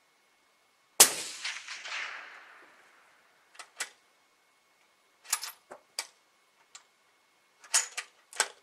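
A single suppressed shot from a .308 Winchester bolt-action rifle fitted with a Stalon Whisper suppressor: one sharp crack about a second in, echoing for about two seconds in the indoor range. Then a run of short metallic clicks as the bolt is worked to eject the case and chamber the next round.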